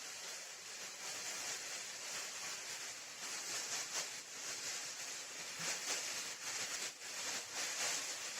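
Small plastic bag crinkled and rustled by hand to imitate rain, a dense crackling patter that gets busier and louder from about three seconds in, standing for the rain growing heavy.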